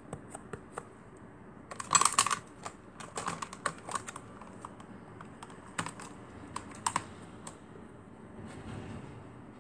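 Irregular series of sharp clicks and taps, loudest in a quick cluster about two seconds in, then more scattered clicks that thin out after about seven seconds.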